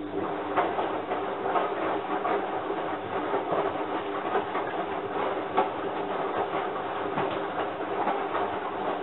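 Front-loading washing machine running, its motor humming steadily while the turning drum gives many irregular knocks and clatter.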